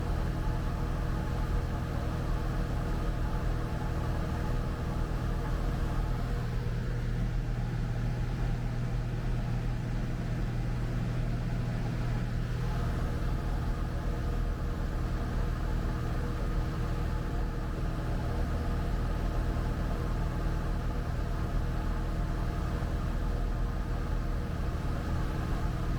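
Cessna 172 Skyhawk's piston engine and propeller droning steadily in cruise, heard from inside the cabin. The note shifts slightly for a few seconds partway through.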